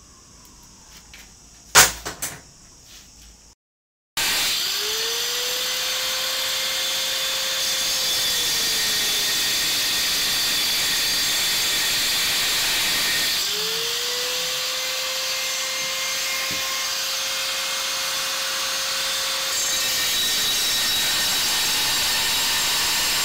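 A single knock in a quiet moment, then an electric angle grinder running against the steel of an empty camping-gas cylinder: a loud, steady, harsh grinding noise. The motor's whine climbs to a held pitch and sags twice as the disc bites into the metal.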